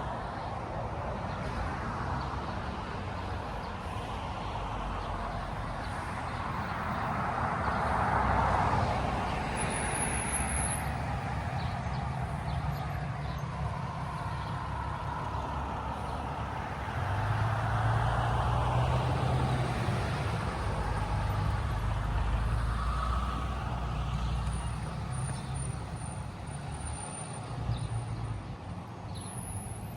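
Passing road traffic: a steady rumble with vehicles swelling past, loudest about eight seconds in and again around eighteen seconds in.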